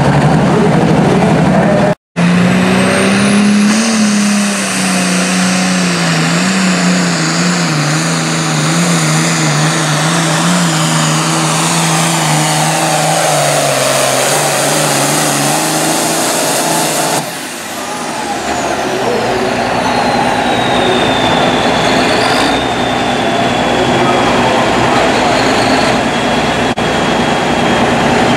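Turbocharged diesel engine of an International 1466 pulling tractor at full throttle against the sled, its note sagging slowly as the pull goes on, with a high turbo whine above it. Near the end of the pull the engine comes off throttle and the turbocharger's whistle winds down and settles.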